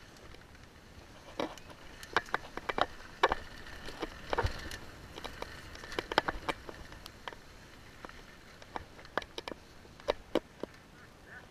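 Mountain bike rolling down a dirt trail, with irregular sharp knocks and rattles from the bike jolting over bumps over a low, steady tyre-on-dirt rumble.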